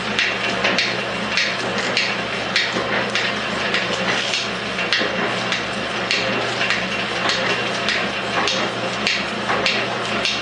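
Metal shaper running a finishing pass across a cast part: a steady motor hum with a sharp clack on every stroke of the ram, a little under two strokes a second.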